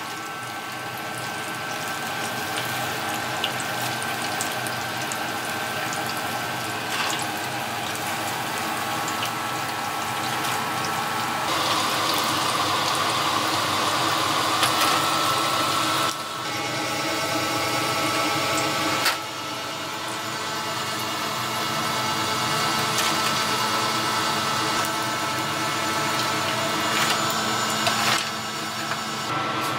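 Battered tempura deep-frying in a wok of hot oil: a steady sizzling and bubbling, with occasional light clicks.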